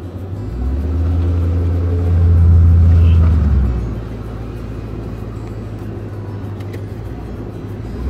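A car engine revving hard under load as the vehicle pushes through deep snow, building from about half a second in and easing off after about four seconds to a lower steady run.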